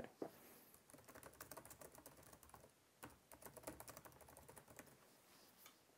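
Faint typing on a keyboard: a quick run of light key clicks, with a short pause about halfway through.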